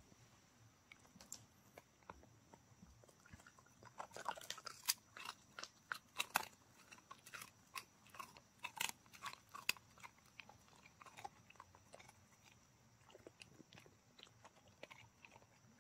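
A dog chewing and crunching a piece of dried beef lung jerky: faint, irregular crunches, thickest in the middle of the stretch and sparser toward the end.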